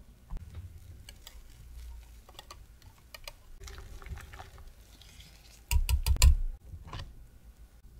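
Wire whisk stirring a thin milk-and-egg corn custard mixture in a glass measuring cup, its wires clicking lightly against the glass. About six seconds in comes a quick run of louder sharp taps of the whisk on the cup, and one more a second later.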